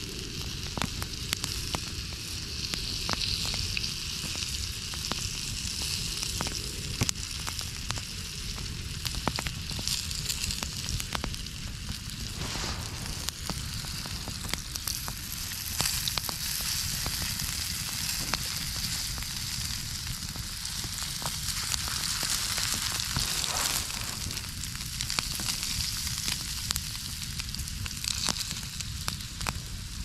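Sausages sizzling in a small frying pan held over a campfire, a steady hiss with frequent sharp pops and crackles throughout.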